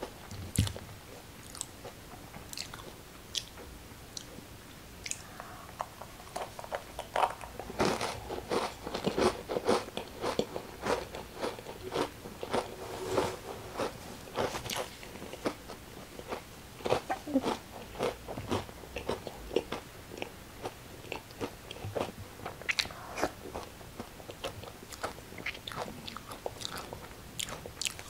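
Crisp crackers being bitten and chewed: a long run of sharp crunches, thickest around the middle.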